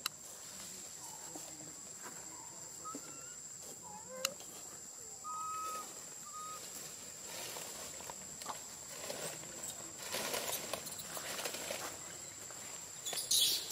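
Steady high insect trill, with a few short chirping calls a few seconds in and dry leaf litter rustling in the second half, loudest near the end.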